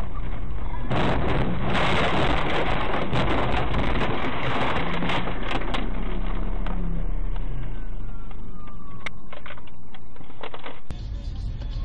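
A car crashing off the road through bushes and small trees, heard from inside the car: a loud rushing clatter of branches scraping and snapping against the body from about a second in until about six seconds, then a few sharp knocks as the car comes to rest.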